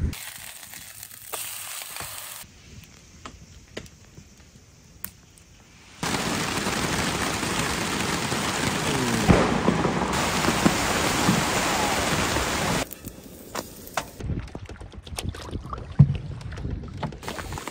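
Steady rain falling on a lake, an even hiss that starts suddenly about six seconds in and cuts off about seven seconds later, between quieter stretches of wind and water with scattered small knocks.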